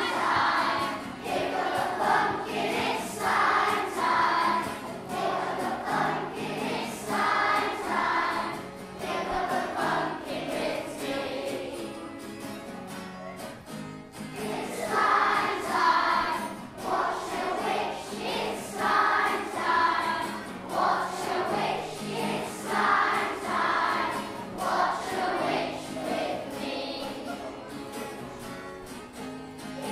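A choir singing a song over backing music, with the chords set in a minor key to make it sound spooky. Sung phrases come in loud bursts with softer passages between them.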